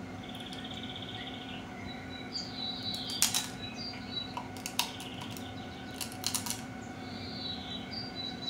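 Birds chirping over a steady high insect-like trill, with a few sharp clicks and crackles from eating crab legs: a loud one about three seconds in, another near five seconds, and a quick cluster around six seconds.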